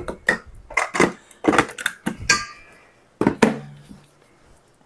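A metal measuring cup knocking and tapping against a stainless steel mixing bowl as brown sugar is packed and tipped in: a run of about eight sharp knocks, one ringing briefly about two seconds in.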